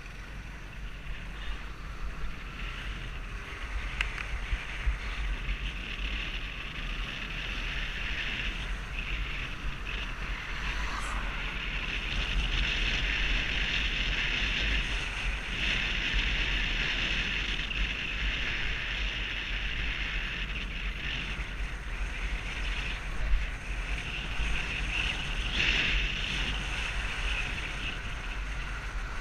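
Riding noise on a Vespa GTS 250 scooter: steady wind rush over the microphone with a deep rumble and the scooter running underneath, a few light knocks scattered through.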